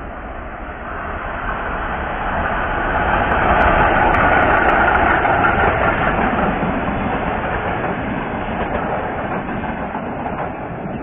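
Diesel-hauled passenger train with double-deck coaches passing close by, its engine and wheel noise swelling to a peak about four seconds in and then slowly fading as the coaches roll past.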